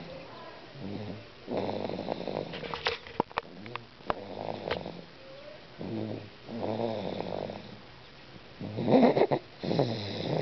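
Snoring, one drawn-out snore every two seconds or so. There are a few sharp clicks about three seconds in.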